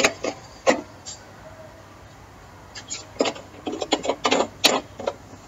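Vegetables simmering in water in an open kadai, bubbles popping in short irregular plops, more of them from about three to five seconds in.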